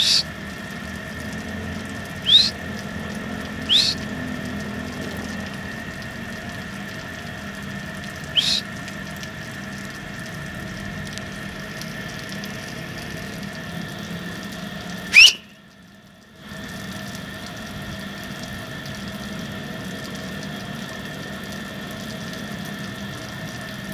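Five short, sharp whistles, each rising quickly in pitch, come at irregular intervals; the last, about fifteen seconds in, is the loudest. They sit over a steady hiss and hum of outdoor background. Just after the loudest whistle the sound drops out almost entirely for about a second.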